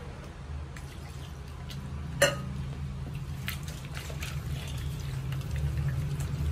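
Wire whisk beating thin flour batter in a steel bowl to mix out the lumps: wet sloshing with light clicks of the whisk against the bowl, and one sharper clink a little over two seconds in. A steady low hum runs underneath.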